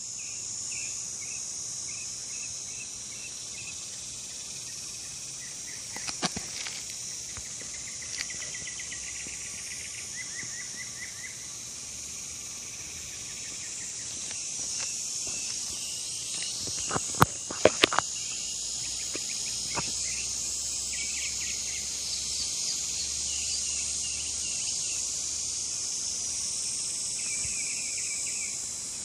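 Outdoor insect chorus: a steady high-pitched buzz with series of short repeated chirps over it. A few sharp clicks about six seconds in, and a louder cluster of clicks a little past halfway.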